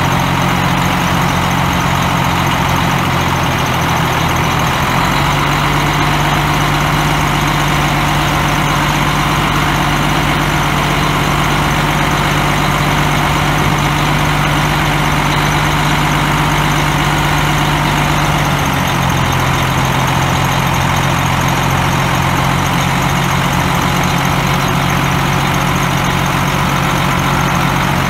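Cummins 10.8-litre straight-six turbo diesel of a dump truck idling steadily. Its engine speed steps up slightly about five seconds in and settles back down a little past the middle.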